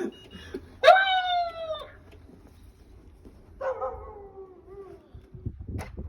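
A dog howling twice: a short call about a second in that rises sharply and then sinks, and a longer, lower call past the middle that slowly falls away.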